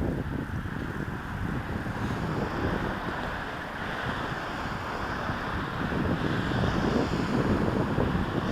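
Wind buffeting the microphone of a camera riding on a moving bicycle: a steady, rumbling rush of noise that rises and falls slightly.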